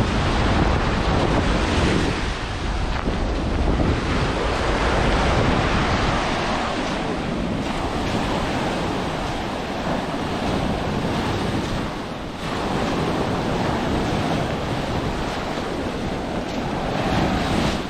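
Sea surf breaking and washing onto a beach, a steady rush of waves, with wind buffeting the microphone that is heaviest in the first several seconds.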